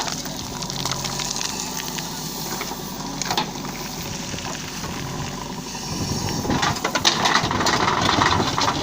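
JCB 3DX backhoe loader's diesel engine running, with scattered knocks and clatter. It gets louder about six seconds in.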